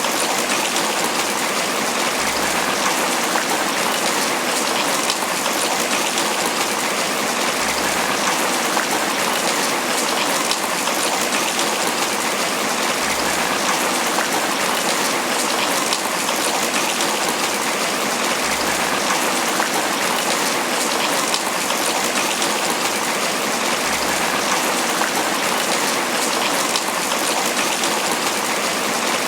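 Steady tropical rain falling on banana leaves: a dense, even patter of drops hitting the broad leaves.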